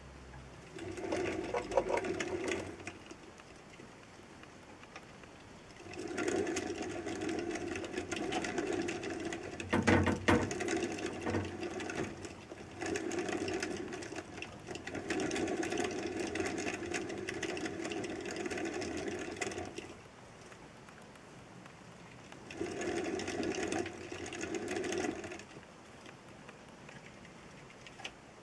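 Wooden exercise wheel spun by a wood mouse, whirring steadily in several spells of a few seconds each, with quiet pauses between them. A few sharp knocks about ten seconds in.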